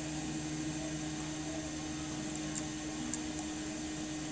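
Steady motor hum with hiss, like a small blower running, with a few faint sharp ticks about halfway through as metal tweezers set a small chip onto the circuit board.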